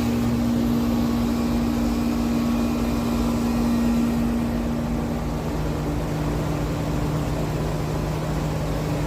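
Outdoor central air-conditioner condenser unit running: a steady compressor hum under the rush of the fan. About five seconds in, the hum shifts to a lower pitch.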